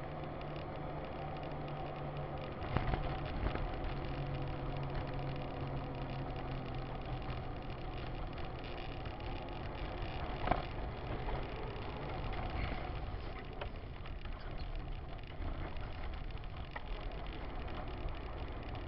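Car engine and tyre noise heard from inside a moving car through a dashcam microphone: a steady low hum, with two brief knocks about three seconds in and about ten seconds in.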